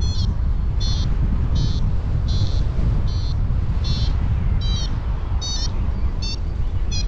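Paragliding variometer beeping in short high chirps about every three-quarters of a second, the beep pattern that signals climbing in lift, over heavy wind buffeting the microphone.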